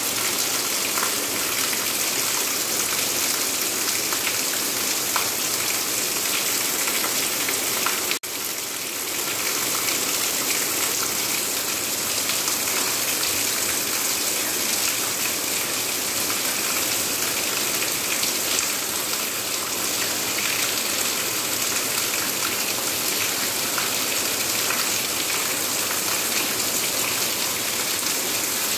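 Heavy rain falling steadily: a dense, even downpour hiss. It cuts out for a split second about eight seconds in.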